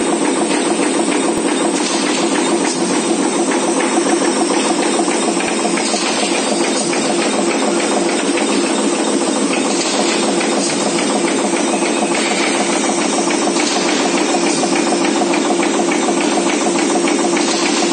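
ZX450 flat-material chopping machine running: a loud, steady mechanical noise with a constant low hum and a dense, fast rattle.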